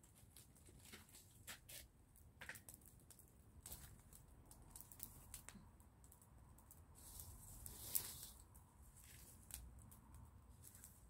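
Open fire of burning sticks crackling faintly with scattered irregular pops, and a brief hiss about seven seconds in that ends in the loudest sharp pop.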